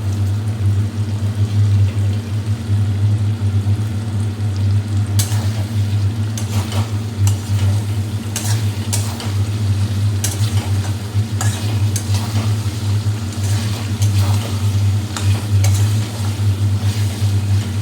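Spatula stirring and scraping curry in a kadai as the masala fries, the scrapes coming irregularly from about five seconds in. A steady low hum runs underneath.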